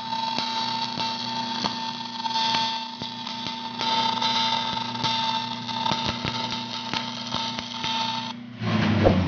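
Stick-welding arc on aluminum plate, a flux-coated aluminum electrode burning a capping pass at about 100 amps: a steady crackling hiss with a steady high tone under it, which cuts off about eight seconds in when the arc is broken. A short low rumble and knock follow near the end.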